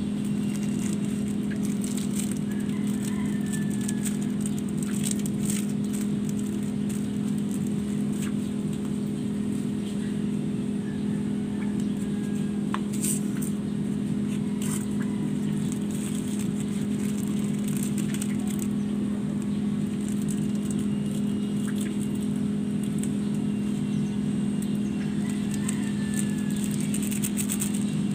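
Small motor running with a steady low hum, with faint scattered crackles from shallots and garlic starting to fry in the wok.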